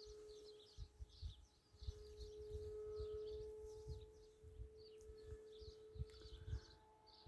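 Steady hum of a distant RC plane's brushless electric motor and propeller, swelling a little around the middle, with small birds chirping repeatedly and wind buffeting the microphone.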